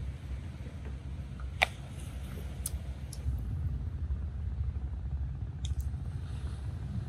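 A metal spoon clinks against a glass mug of tea a few times during stirring, the loudest clink about a second and a half in. Under it runs a steady low rumble.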